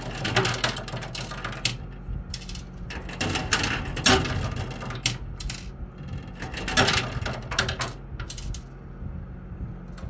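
10-peso coins clinking and clattering inside a coin pusher arcade machine, in many irregular metallic clicks, as coins are dropped in and jostle on the moving pusher shelf. A steady low machine hum runs underneath.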